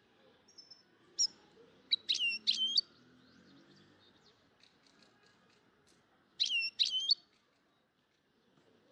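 A small bird chirping: a few sharp, high chirps between one and three seconds in, then a pair of chirps about six and a half seconds in.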